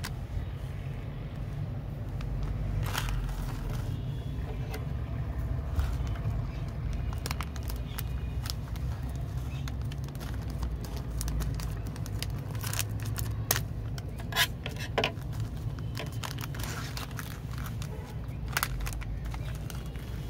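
Metallised plastic snack packet crinkling in the hand and being snipped open with scissors: scattered sharp crackles and clicks, sharpest a little past halfway, over a steady low rumble.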